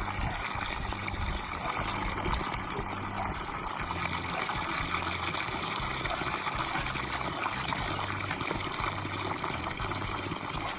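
Running water pouring steadily into an animal water trough as it fills.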